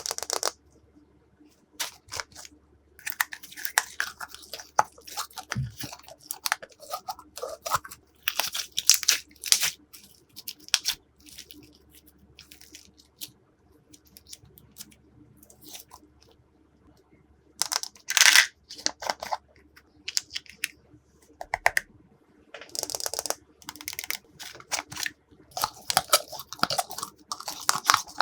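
Glossy slime being mixed and pressed by hand, making rapid sticky clicks and crackles in irregular bursts with short pauses between.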